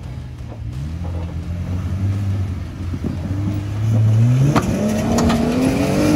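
Lifted Jeep Gladiator's engine crawling at low steady revs, then revving up about four seconds in as the truck climbs a rock ledge on 43-inch tires. Near the end come scattered knocks and scrabbling as the tires spin on the rock and throw up dirt.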